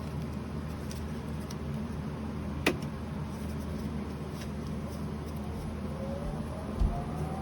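Small lathe running steadily with a low motor hum. A sharp click comes about two and a half seconds in, a rising whine joins in the second half, and a dull thump comes near the end.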